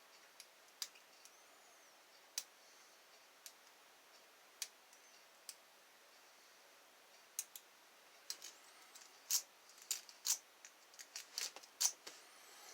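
Lock pick working the pins of an ILCO seven-pin tumbler lock: light metallic clicks, scattered at first, then coming thick and fast over the last five seconds.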